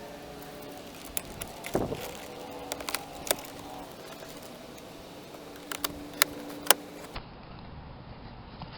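Sharp clicks and a dull thump from handling a Cadillac Catera's car door, over a faint steady tone.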